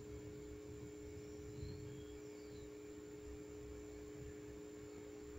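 A faint, steady hum of two low tones held without change, over an uneven low rumble.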